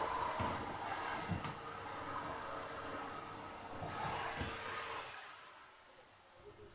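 Household vacuum cleaner running with a steady hiss and high whine, dropping to a much quieter whine after about five seconds.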